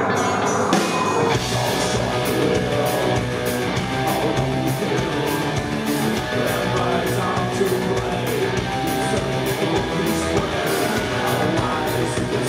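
Live industrial metal band playing loud, recorded from the audience: distorted electric guitar over a drum kit with a steady cymbal beat. The bass and kick drum come in about a second in.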